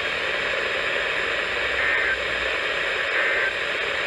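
NOAA weather radio receiver giving a steady static hiss, with faint traces of a weak signal showing through the noise.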